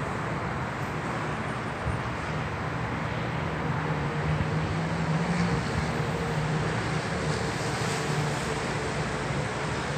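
Street traffic: a steady wash of cars and their tyres, with a vehicle's engine hum swelling as it passes over the middle of the stretch.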